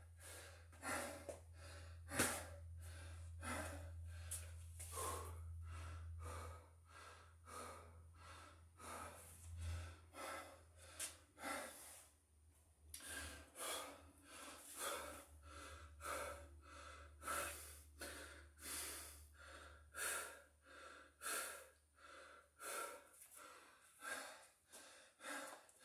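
A man breathing hard and fast, catching his breath between sets of burpees: a quick, even run of breaths, somewhat more than one a second.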